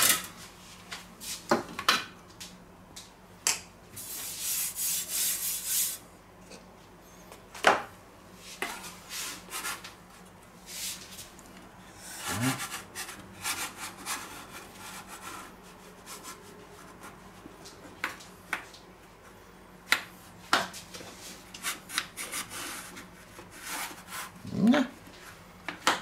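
Split pizza peel being slid and scraped over a floured wooden cutting board as its two halves are worked under a pizza: scattered knocks and clicks, with a few longer scraping passes.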